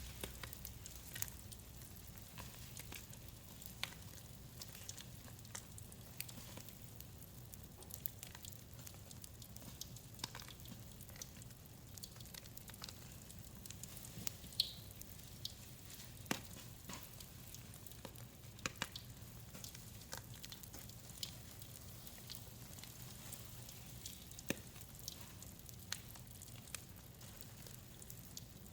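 Faint, irregular crackling and sharp little snaps from Mr. Bubble bath crackles popping in a wet mix of blue-dyed pine cleaner, with hands squishing and crushing gym chalk.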